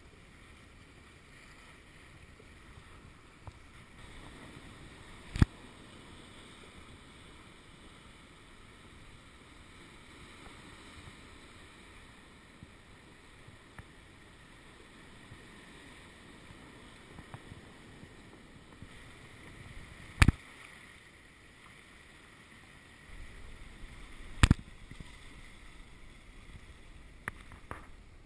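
Kayak paddling on calm sea water: a quiet steady wash of water and paddle splashes. Three sharp, loud knocks stand out, one about five seconds in and two more near the end.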